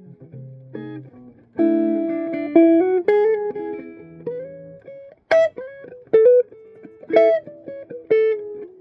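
Electric guitar played clean through a Mesa/Boogie Nomad 55 amplifier, without distortion: a strummed chord about a second and a half in, then single notes and short picked chords.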